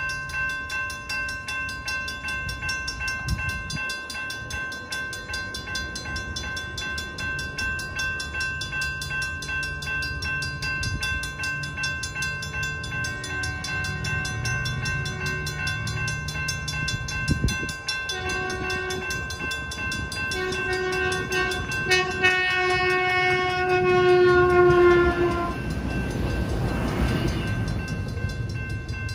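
Safetran mechanical crossing bell ringing rapidly and steadily. About two-thirds of the way through, an approaching Sprinter diesel railcar sounds its horn in several blasts, the last one long and dipping slightly in pitch at its end. Near the end the train passes the crossing with a swell of rushing noise.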